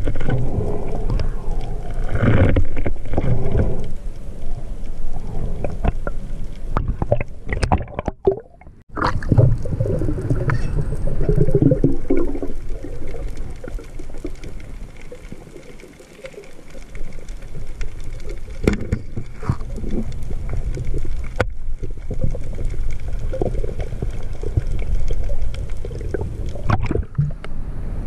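Sea water sloshing and splashing, heard muffled and rumbling at the microphone, in uneven swells with a short sharp dip about eight seconds in.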